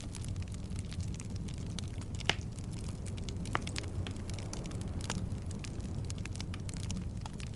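Logs burning in a fireplace: a steady low rumble of flame under frequent small crackles, with a sharper pop about two seconds in and another about three and a half seconds in.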